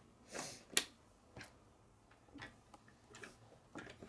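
K'nex plastic rods and connectors clicking and scraping as they are pushed together by hand on a wooden tabletop: a handful of small, separate clicks with brief rustles, the sharpest about a second in.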